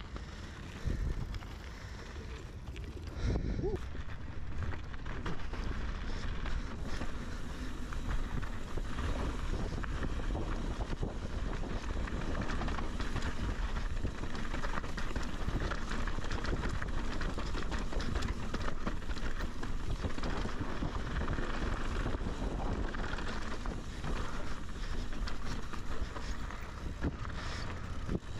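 Mountain bike descending a rocky dirt trail, heard from a rider-mounted camera: wind buffeting the microphone, with the tyres crunching over loose gravel and the bike rattling over rocks. It gets louder a few seconds in as the speed picks up.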